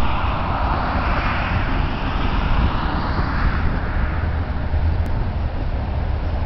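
Outdoor background noise: a steady low rumble, with a rushing noise that fades away over the first three or four seconds.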